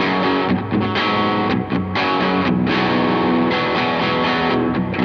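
Squier Paranormal Cabronita baritone Telecaster played through distortion and effects in an ambient jam: sustained, overlapping chords and notes ringing into one another.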